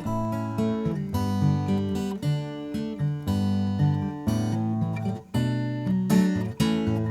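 Acoustic guitar strumming chords in a steady rhythm: the instrumental intro of a gentle country-style Christmas song.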